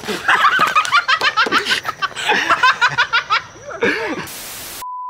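People laughing hard in quick repeated bursts, several voices overlapping. Near the end a short burst of static hiss is followed by a steady electronic beep.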